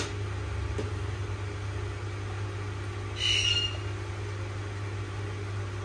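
A steady low hum, with a short bright clink-like sound about three seconds in.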